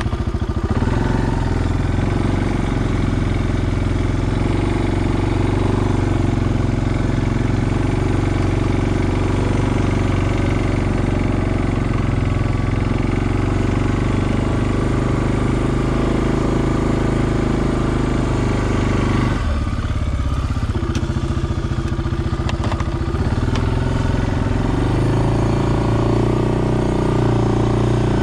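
Suzuki King Quad 400 ASi ATV's single-cylinder engine running under load as the front plow blade pushes snow. The engine note drops sharply about two-thirds of the way through, then picks back up and rises near the end.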